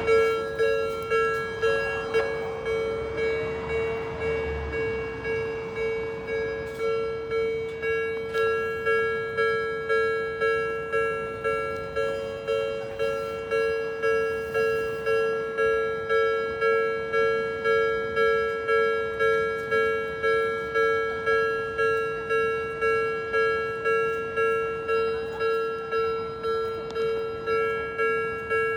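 Japanese railway level-crossing warning bell ringing steadily, a repeated 'kan-kan' tone about one and a half strikes a second, each strike fading before the next: the crossing is closed for an approaching train.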